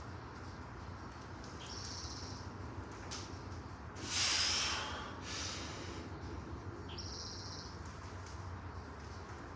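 A weightlifter breathing hard under a loaded barbell during back squats. Short hissing breaths come twice, and a louder forceful breath comes about four seconds in.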